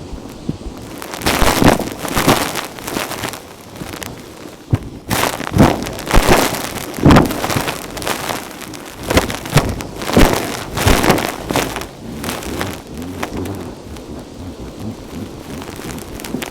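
Vacuum cleaner sucking up fine dirt and fluff, crunching and crackling in irregular loud surges that ease off near the end.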